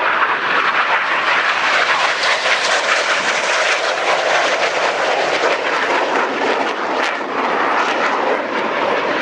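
Loud, steady jet noise of a BAE Hawk T1 flying past, its single Adour turbofan engine running.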